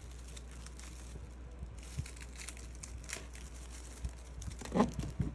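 Plastic packaging crinkling and rustling as the parts of a resin figure are handled and unwrapped, with scattered light clicks and a brief louder bump near the end.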